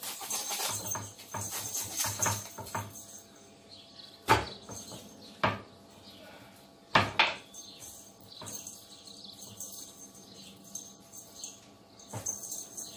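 Knife and raw whole chicken knocking and scraping on a wooden cutting board as the bird is trimmed and turned over. A busy run of scraping and handling in the first few seconds, then single sharp knocks about four, five and a half and seven seconds in, and a few smaller ones near the end.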